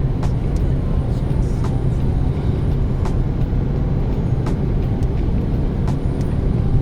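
Motor vehicle on the move: a steady low engine and road rumble, with scattered light clicks and rattles about once a second.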